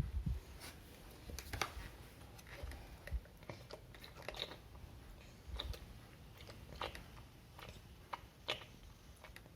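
A toddler chewing and biting food, with soft, irregular crunches and mouth clicks about once a second.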